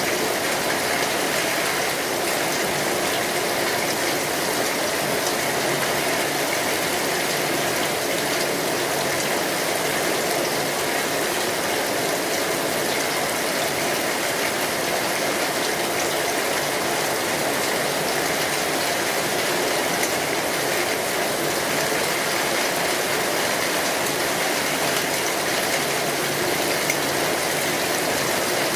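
Steady rain falling on an umbrella canopy overhead, a dense, even patter of drops.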